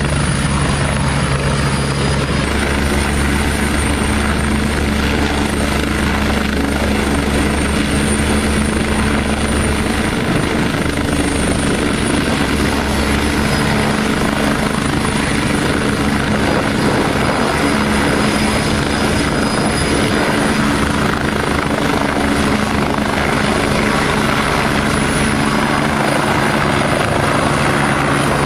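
Light police helicopter's rotor and turbine engine running loud and steady at close range as it hovers low, then lifts off and climbs away. Its low hum changes pitch about ten seconds in.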